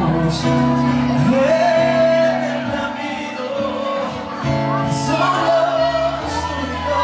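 Live ballad: a man singing long held notes into a microphone over keyboard chords, in a large hall.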